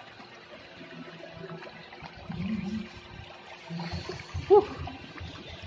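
Water running and splashing into a swimming pool, a steady wash of sound. A short voice-like blip a little past the middle is the loudest moment.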